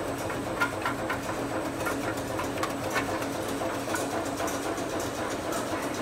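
Sandwich biscuit machine running: a steady mechanical hum with repeated clicking and clatter from its moving parts.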